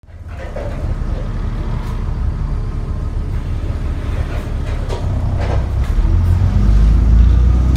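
Diesel engine of an ADL Enviro 400 double-decker bus heard from inside the bus: a low steady drone that fades in and grows louder about six seconds in. The bus is stuck in limp mode.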